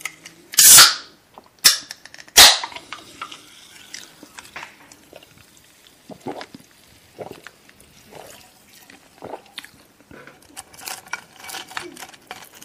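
Eating noises from crispy fried chicken (Jollibee Chickenjoy): three loud, sharp cracks in the first two and a half seconds, then many quieter crunches and small clicks of biting and chewing.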